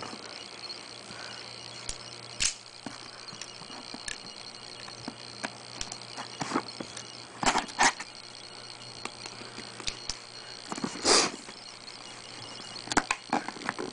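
Cardboard box and packaging being opened and handled by hand: scattered rustles and knocks, the loudest around the middle and about eleven seconds in, over a steady low hum.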